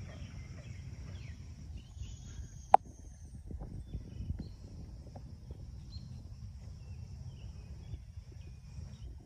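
Wind buffeting the microphone in a steady low rumble, under a thin, steady high drone of insects. One sharp click a little under three seconds in.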